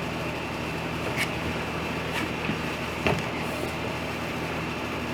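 A steady motor hum, with a few light knocks about one, two and three seconds in.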